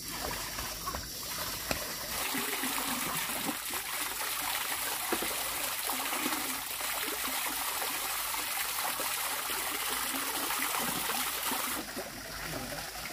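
Water running and splashing in a steady stream, growing fuller about two seconds in and easing off near the end.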